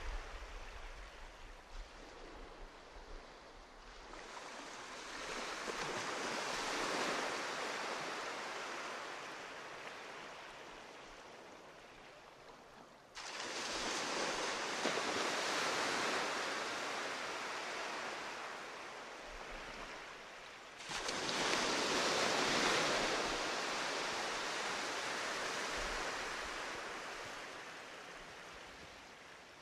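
Sea surf washing ashore, a noisy rush that swells and slowly fades over several seconds at a time. Twice it jumps up abruptly, as at an edit, about halfway through and again two-thirds of the way in.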